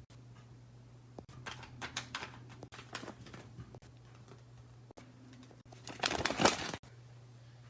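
Paper craft being handled: soft taps and light crinkling of paper, with a longer, louder rustle about six seconds in, over a faint steady hum.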